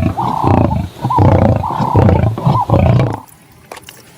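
Lion roaring: a run of loud roars that stops about three seconds in, followed by faint small clicks.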